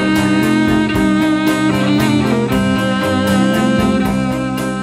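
Background music: a guitar-led track with a steady drum beat, starting to fade out near the end.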